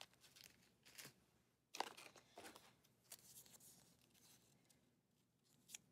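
Faint crinkling and rustling of candy wrappers handled in the hands, plastic and paper packets, in a few short scattered crackles with the sharpest a little under two seconds in.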